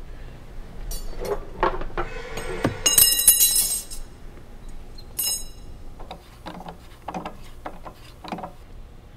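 Metallic clinks and a ringing clatter, loudest about three seconds in, then a few softer knocks and clicks.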